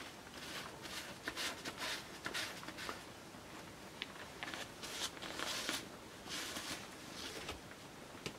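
A cat rubbing its head and body against a metal bunk-bed railing and shifting on the bedding: a string of soft, irregular rustles and scratchy brushes of fur against metal and sheets.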